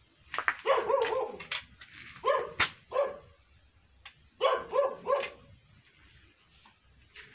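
A dog barking in three quick volleys of several barks each, about two seconds apart.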